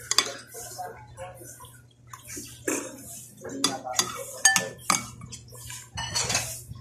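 Metal spoon and fork clinking and scraping on a ceramic plate while scooping noodles, with a cluster of sharp clinks between about three and a half and five seconds in, one of them ringing briefly. Short wet mouth noises of eating come in between.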